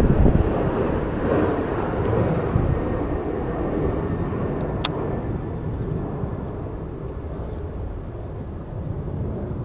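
Wind buffeting the microphone as a loud low rumble that slowly eases off. About halfway through there is one sharp click from the baitcasting reel being handled.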